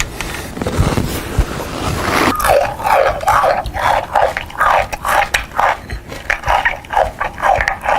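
Loud chewing and mouth noises amplified through a handheld megaphone, thin and without bass. After about two seconds they come as rapid repeated bursts, two or three a second.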